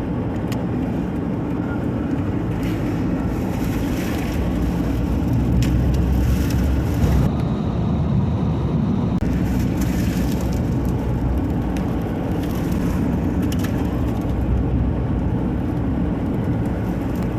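Car driving: a steady rumble of engine and road noise, with stretches of brighter hiss on top.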